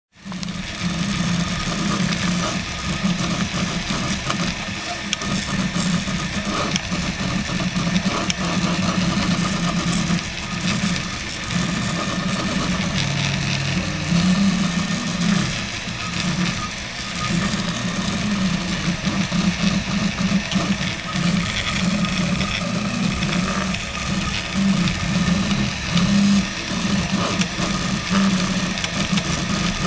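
RepRap Prusa Mendel 3D printer running a fast print at 120 mm/s: its stepper motors hum and buzz, the pitch shifting and breaking off every second or so as the print head changes moves, with a rattling hiss from the moving axes.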